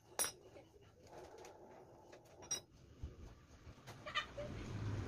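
A few short, sharp sounds over a quiet background, then a motor vehicle's low rumble building near the end.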